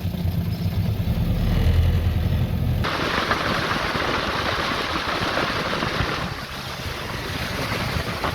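A small boat's outboard motor running with a low steady hum. About three seconds in it gives way suddenly to a steady rush of wind and water noise, which eases a little near the end.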